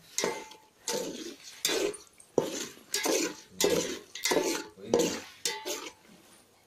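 Metal spoon scraping and stirring lumps of jaggery in water in a metal bowl, dissolving the jaggery to make syrup. About nine clinking scrapes come at a steady pace, roughly one and a half a second, and stop shortly before the end.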